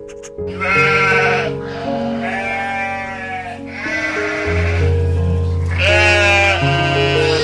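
An animal bleating in several separate wavering calls over background music with steady sustained notes.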